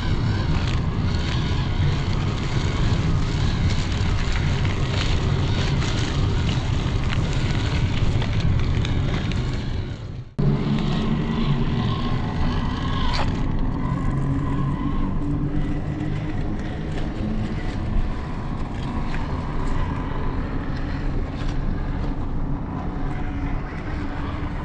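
Small electric RC crawler, a 1:18 FMS FJ Cruiser, driving: motor and gears whining, with scattered clicks and crunches from the wheels over the ground. The sound breaks off sharply about ten seconds in and resumes at once, and the whine then varies with the throttle.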